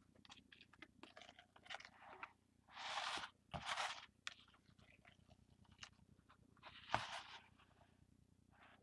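Paper rustling and scraping as shaving cream is wiped out of a glass baking dish. There are a few short crinkly swishes, the loudest about three and four seconds in and again near seven seconds, among small scattered clicks.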